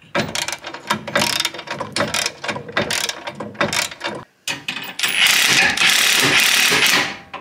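Hand socket ratchet clicking in quick back-and-forth strokes as a bumper bolt is run in. About five seconds in, a cordless impact wrench hammers on a bolt for about two seconds, the loudest part.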